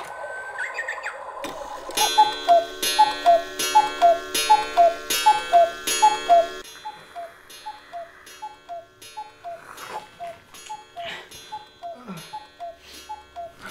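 Cuckoo clock calling its falling two-note "cuckoo" over and over, loud over a ringing chime, then carrying on much fainter and more muffled from about six and a half seconds in. A short squeak comes just before the calls begin.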